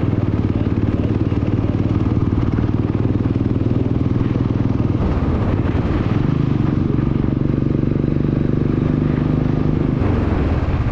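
Motorcycle engine and exhaust running loudly while riding, a steady engine note that steps up in pitch about six seconds in as the engine speeds up.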